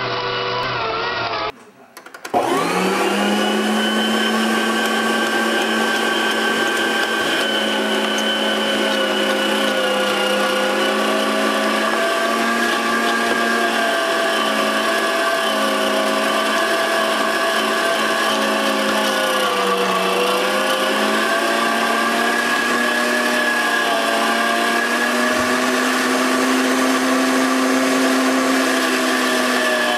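SamBaere SB-500 electric meat grinder switching on about two seconds in: the motor spins up with a quickly rising hum, then runs steadily as meat is fed through, its pitch sagging briefly under load about twenty seconds in.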